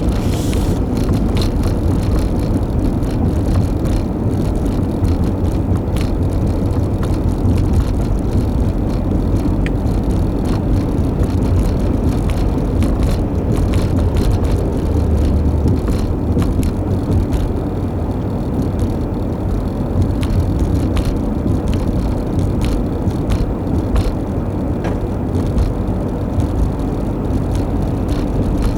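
Car driving, heard from inside the cabin: a steady low rumble of tyres and engine on the road, with many small rattles and clicks scattered throughout.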